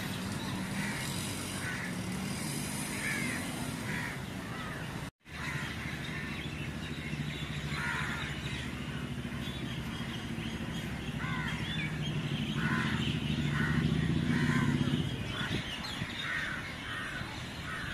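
Crows cawing and other birds calling in short, repeated calls over a steady low hum of road traffic. The audio cuts out for a split second about five seconds in.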